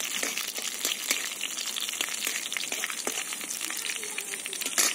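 Dried red chillies and black cumin seeds sizzling and crackling in hot mustard oil in a steel kadai as they are stirred. There is one sharper click just before the end.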